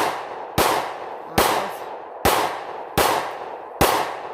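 A handgun fired in a rapid, steady string, about one shot every 0.8 seconds, each crack followed by a fading echo.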